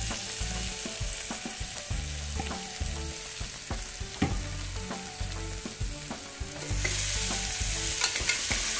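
Chopped onions and green chillies sizzling in hot oil with fenugreek leaves in an aluminium pressure cooker, a steel spoon clinking and scraping against the pot as they are stirred. The sizzle gets louder about seven seconds in.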